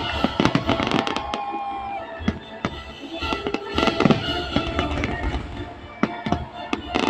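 Fireworks salute going off in a rapid, irregular series of bangs and crackles, with music playing alongside.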